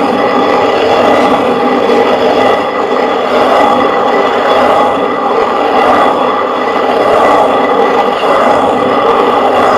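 Hand-turned stone quern (chakki) grinding lightly roasted broken rice into flour: the upper millstone is turned continuously on the lower one, giving a steady, loud stone-on-stone grinding rumble.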